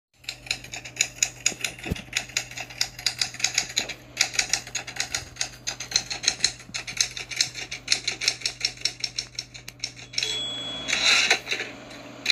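Typewriter typing sound effect: a fast, uneven run of key clicks, several a second. Near the end the clicking stops, and a short ringing tone and a brief rush of noise follow.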